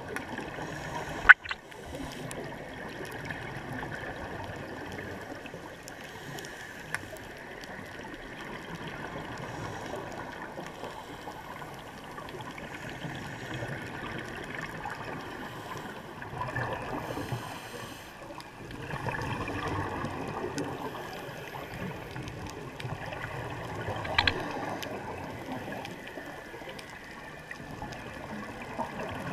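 Underwater sound heard through a camera housing: a steady rushing hiss with swells of gurgling scuba exhaust bubbles, strongest about halfway and two thirds through. A sharp knock about a second in is the loudest thing, with a smaller click about three quarters through.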